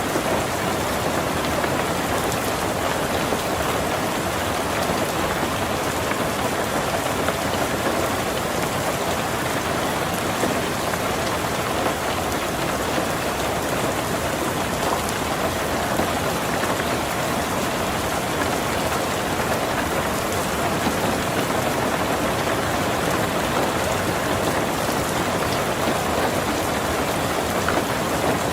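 Heavy rain falling steadily on a tin roof: a dense, even patter of countless drops that keeps a constant level throughout.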